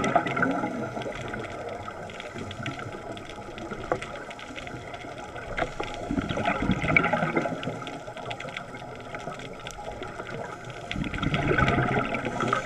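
Scuba regulator exhaust bubbles heard underwater, rushing out in bursts about every five to six seconds as the divers breathe out, with faint crackling between the breaths.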